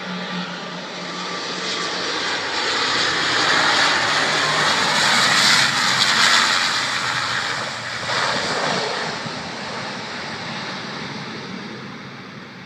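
Airplane passing by, its engine noise swelling to a peak about halfway through and then fading away.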